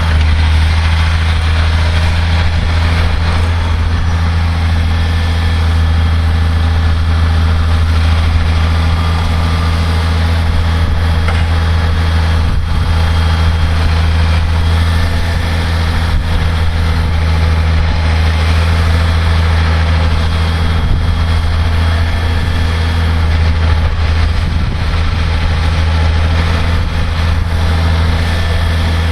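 Massey Ferguson 6490 tractor's six-cylinder diesel engine running at a steady, unchanging pitch.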